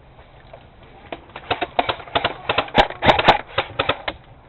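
Airsoft guns firing in quick, irregular snapping shots and short strings, densest about three seconds in and quieter than a burst at close range.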